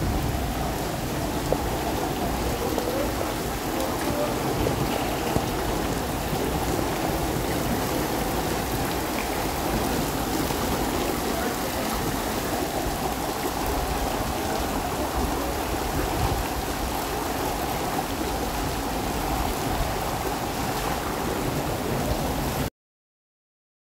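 Heavy monsoon rain pouring steadily onto wet paved ground with water running across it. The sound cuts off suddenly near the end.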